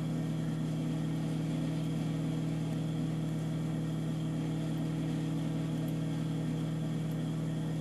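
A steady, low electric motor hum, unchanged throughout, with no stitching or other distinct events.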